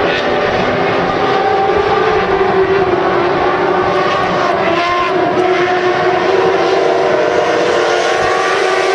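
A field of modlite dirt-track race cars running together as a pack, many engines at once. The sound is steady and loud, with several engine notes weaving up and down in pitch as cars pass.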